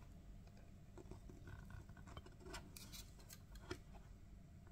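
Near silence, with faint scattered ticks and light scratching from a soldering iron tip working solder onto a copper circuit-board pad.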